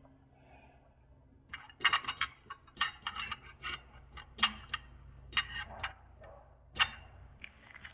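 Irregular light metallic clicks and taps as a steel cutter blade is handled and fitted into the cast iron frame of an antique tobacco cutter. They start about a second and a half in and go on until near the end, loudest about halfway through.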